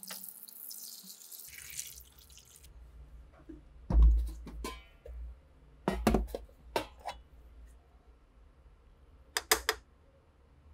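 Water poured from a glass splashing onto a rusty rifle part in a plastic trough for about two and a half seconds. Then a series of separate knocks and clunks, the loudest about four seconds in, with a pair of sharp clicks near the end.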